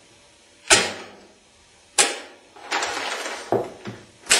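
Modified Steyr AUG bullpup rifle firing shotgun primers: three loud sharp cracks, about a second in, two seconds in and near the end. Smaller clacks of the action come between them, along with a short hiss.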